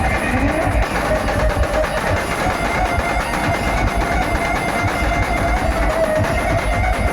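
Brass band playing an instrumental stretch of a Hindi film song, without singing: a melody line held over heavy, steady drum beats.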